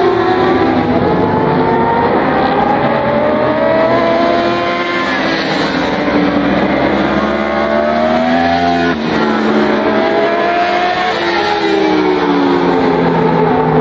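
Several racing sport motorcycles' engines running hard through a corner and past, loud, their overlapping tones repeatedly rising and falling in pitch.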